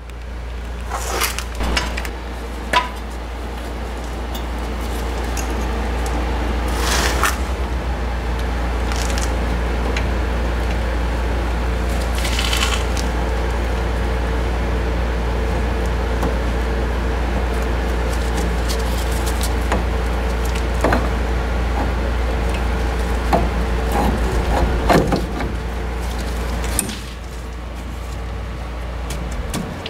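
Scattered clicks and light knocks of a brake caliper being worked onto its bracket over new pads and a drilled rotor, as it is pushed in to snap into place. Under it runs a steady low hum that cuts off near the end.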